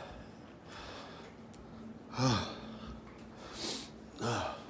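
A man's breathing and wordless vocal noises: a short grunt falling in pitch about two seconds in, a sharp hissing breath, then another short grunt near the end.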